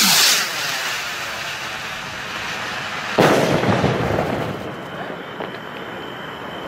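A single 25 mm Atlas 1700 firework rocket launching with a rushing whoosh that falls in pitch, hissing as it climbs, then bursting with a sharp bang about three seconds in that echoes away.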